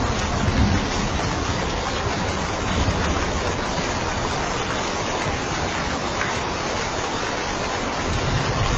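Steady, heavy rain: an even hiss with no let-up.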